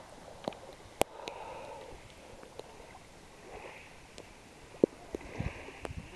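Lake water lapping and sloshing right at a waterproof camera held at the surface, in uneven swells, with a few sharp clicks scattered through.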